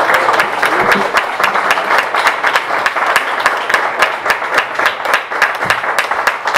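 An audience applauding steadily, with a few voices among the clapping.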